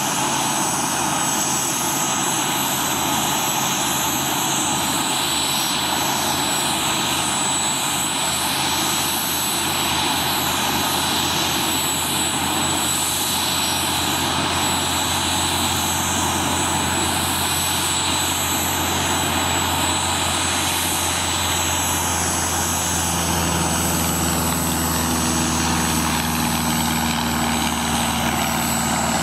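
Boeing CH-47 Chinook's twin turboshaft engines running on the ground with the rotors turning: a steady turbine whine with high tones over a dense rushing noise. A lower hum joins about three-quarters of the way through.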